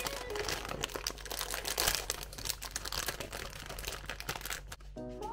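Clear plastic bag with a paper liner crinkling and rustling as it is handled and tipped to slide a pastry out, stopping just before the end.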